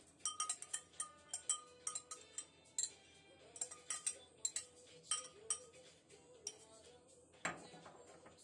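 Glass jar clinking as it is tapped and shaken to pour out crumbled spinach sponge, with a spatula working inside it: quick, irregular clinks for about six seconds, then one louder knock near the end.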